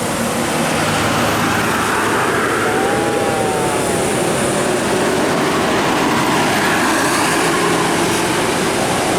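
Road traffic passing close by: a steady rush of engine and tyre noise that swells in the first second and then holds.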